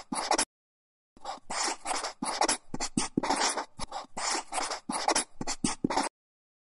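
Pen scratching across paper in quick, irregular strokes, a writing sound effect. It breaks off briefly about half a second in and stops about a second before the end.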